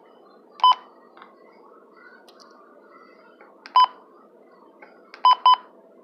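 Weather alert radio giving short electronic beeps as its buttons are pressed: one about half a second in, another near four seconds, then two quick beeps near the end.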